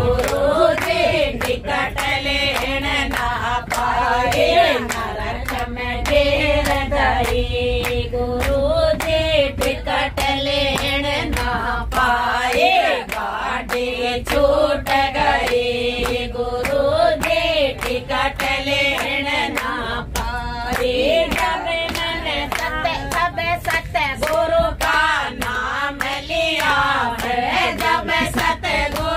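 A group of people singing a devotional song (bhajan) together, with steady hand-clapping in time throughout.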